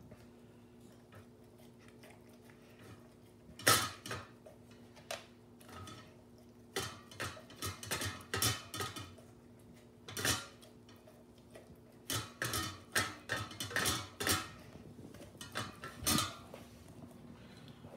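Standard poodle eating from a stainless steel bowl in a wrought-iron stand: irregular clinks and knocks of the metal bowl as she eats, coming in clusters, with the loudest knock about four seconds in.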